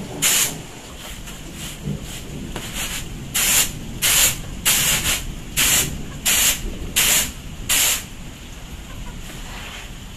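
Raw rice being winnowed on a round woven bamboo tray: each toss throws the grains up and catches them with a sharp, hissing swish. There is one toss near the start, then seven in quick succession, about one every 0.7 s. They stop about 8 s in.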